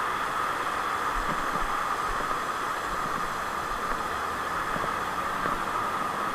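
Steady rushing hiss of outdoor background noise, even throughout.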